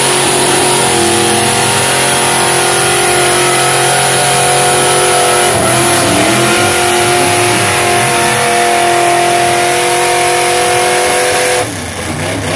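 Engines of two lifted 4x4 trucks revving hard at sustained high RPM while pulling against each other in a truck pull. The engine pitch dips and climbs again about six seconds in, and the revving cuts off abruptly near the end.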